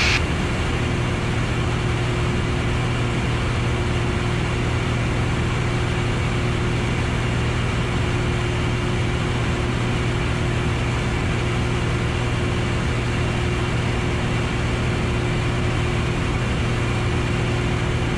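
Piper Arrow's single piston engine and propeller droning steadily in the cabin in level flight: a constant low hum with a thin steady tone above it.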